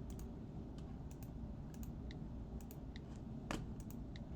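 Computer keys clicking irregularly, several a second, with one louder click near the end, over a low steady hum.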